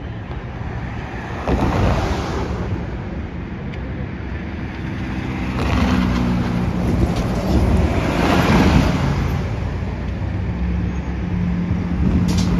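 Street traffic: cars passing close by, with one swell of tyre and engine noise about two seconds in and a longer, louder one from about six to nine seconds in.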